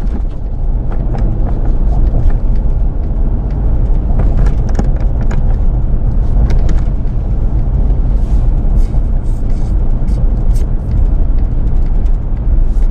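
Car cabin noise while driving: a steady low rumble of engine and road noise, with scattered light clicks and knocks.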